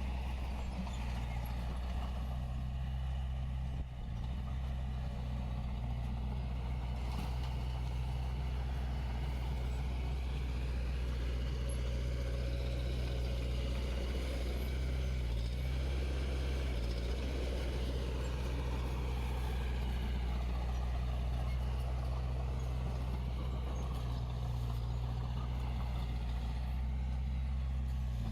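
Diesel engine of heavy earthmoving equipment, a bulldozer or dump truck, running steadily under a constant throttle, with a brief dip in level about four seconds in.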